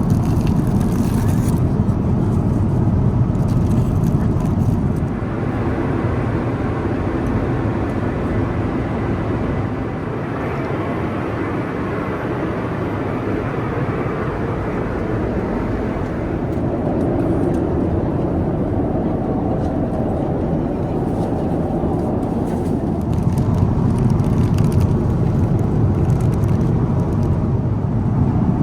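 Steady low rumble and rush of a moving vehicle heard from inside. It eases a little about five seconds in and builds again near the end.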